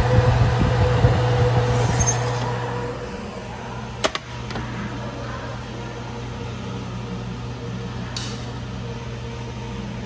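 Commercial convection oven's fan running with a steady hum and rushing air, loudest for the first three seconds as the tray of scones goes in. A sharp click about four seconds in, then a lower steady hum.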